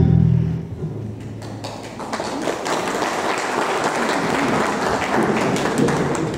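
The last chord of a song with bass guitar, acoustic guitar and keyboard dies away, then an audience applauds, the clapping building about two seconds in and holding steady.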